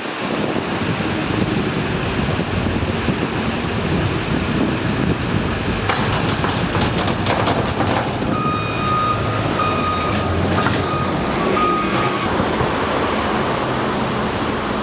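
Heavy construction equipment running steadily. Its backup alarm sounds a string of high beeps near the middle, just after a stretch of clattering.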